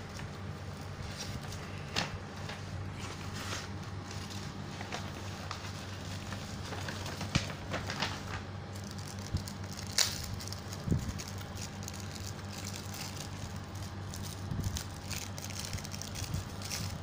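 Handling noise of folded paper pieces being moved about: scattered faint clicks and crackles over a steady low hum.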